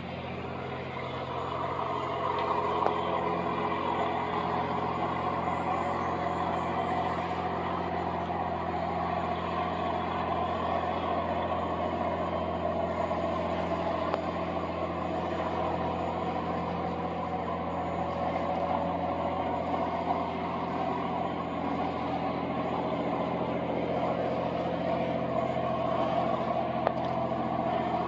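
Inboard diesel engine of an Amazon passenger riverboat running steadily at cruising speed as it passes close by, an even low drone that grows louder in the first two seconds and then holds.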